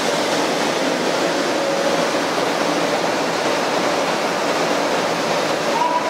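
Steady rushing noise from a 500 series Shinkansen train standing at a station platform with its doors open, with faint steady hum tones underneath.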